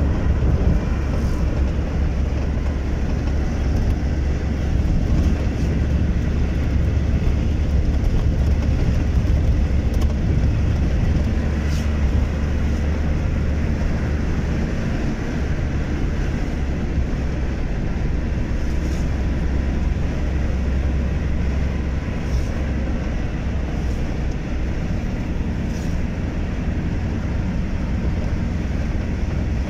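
Steady road and engine rumble of a moving car, heard from inside the cabin, with a few faint ticks here and there.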